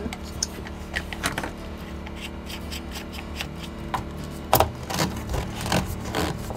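Plastic clicks, taps and rubbing as a small diaphragm water pump and its threaded fittings and hose are handled and fitted together, with a sharper knock about four and a half seconds in. A steady low hum runs underneath.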